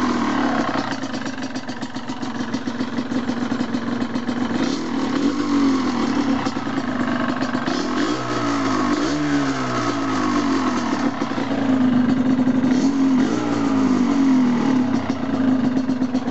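Yamaha DT125's freshly rebuilt, warm single-cylinder two-stroke engine running and being revved, the pitch rising and falling several times between stretches of steadier running.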